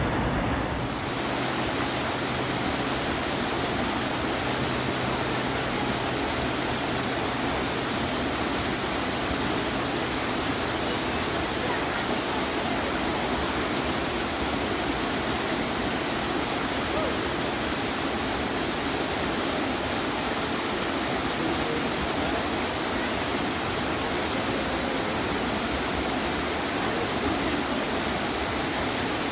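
Steady, even rush of mountain water cascading over rocks.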